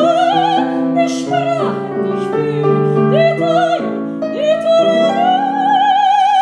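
A female soprano sings an operatic phrase with wide vibrato over grand piano accompaniment. She rises into a long held high note about five seconds in.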